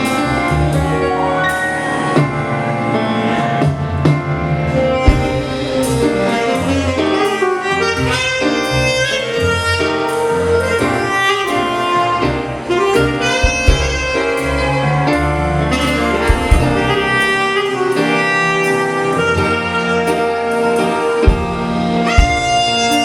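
A live band playing an instrumental piece: a saxophone leads with brass, over a drum kit beat.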